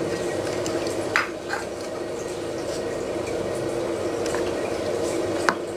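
A metal spoon clinking and scraping against a bowl while a sausage-and-cheese skewer is coated in thick batter: a few light clicks, about a second in, again shortly after and near the end, over a steady background hum.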